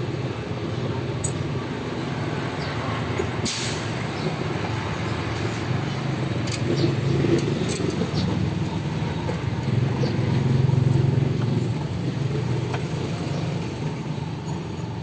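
Steady low rumble of a motor vehicle running nearby, swelling around ten seconds in, with a few sharp clicks over it.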